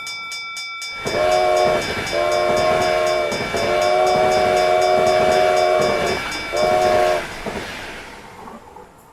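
Train horn sounding four times, short, medium, long and short, over the steady rush and rapid clatter of a passing train, which fades away near the end.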